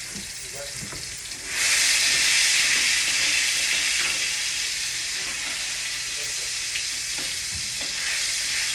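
Food frying in a hot pan, a steady sizzle that suddenly gets much louder about a second and a half in, then eases a little, with a few light clicks.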